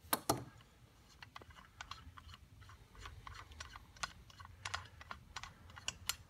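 Light, irregular metallic clicks and ticks as a cam seal installer tool and its AVCS cam gear bolt are unscrewed by hand from a camshaft, with one louder clack right at the start.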